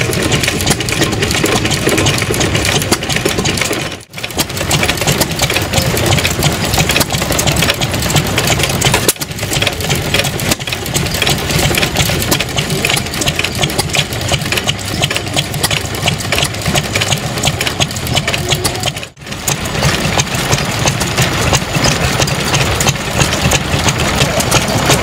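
Several small vintage stationary engines running in turn, each with a fast, even mechanical clatter. The sound drops out briefly about four, nine and nineteen seconds in as one engine gives way to the next.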